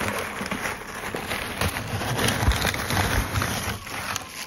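Packing paper and plastic wrap rustling and crinkling as a hand rummages through a cardboard box. It is a dense, continuous crackle of many small clicks.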